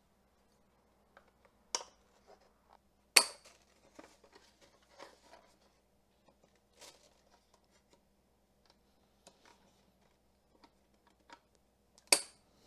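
Scissors cutting the cardboard packaging insert around a saddle, heard as scattered snips and rustling of card. Two sharp, loud snips stand out, about three seconds in and near the end.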